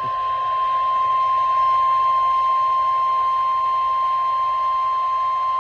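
NOAA Weather Radio warning alarm tone: a single steady high tone of about 1050 Hz, held without a break over radio hiss, signalling that a warning message is about to be broadcast.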